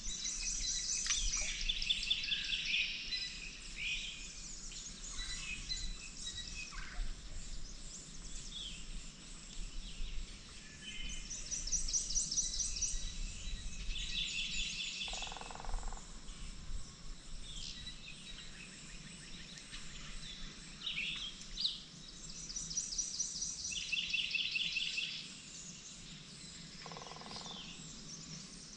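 Wild songbirds singing: short, rapid trills of evenly repeated high notes come back every several seconds, with scattered chirps between them.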